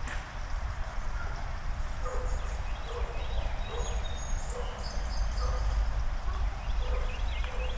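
Birds calling: repeated short notes and quick chirping phrases, busiest in the second half, over a steady low background rumble.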